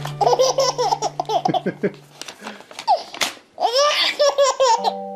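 A baby laughing in quick, high-pitched giggling bursts over background music. The music's held notes drop out about two seconds in and return near the end.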